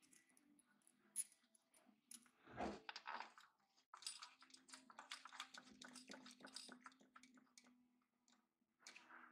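Faint metallic clicking and clinking of intake manifold bolts being handled and started by hand into the TPI intake runners, with a soft knock about two and a half seconds in and a quick run of clicks from about four to seven seconds in.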